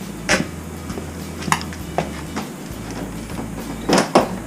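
Several sharp clicks and knocks as the windshield of a Honda Gold Wing is unlocked and handled; the loudest two come close together near the end.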